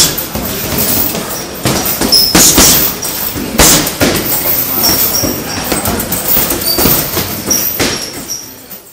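Boxing gloves hitting a heavy bag in irregular punches, each landing as a sharp thud, with short high squeaks in between.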